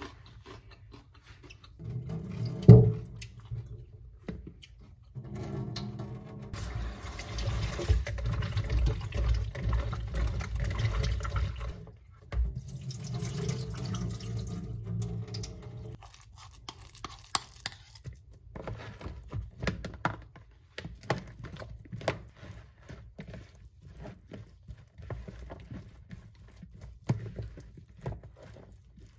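Water running and pouring at a sink as salted radish cubes are rinsed in a plastic bowl and the water is drained off, after a single sharp thump about three seconds in. From about halfway, a spatula clicks and scrapes against the plastic bowl as the radish is mixed with chili seasoning.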